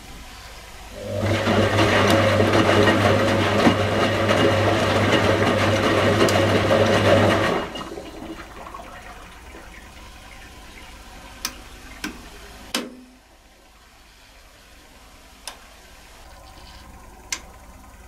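1985 Indesit 822 washing machine mid-cycle: a loud rush of water through the machine with a steady electrical hum for about six seconds, stopping abruptly. Then the drum turns more quietly, with five sharp clicks, and after the third click the machine goes quieter still.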